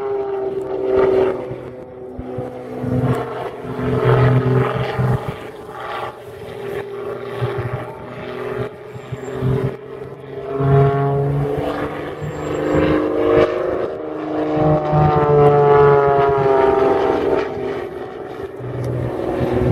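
Aerobatic biplane's piston engine and propeller running hard through a routine overhead, the pitch gliding up and down and the loudness swelling and fading as the plane climbs, tumbles and dives.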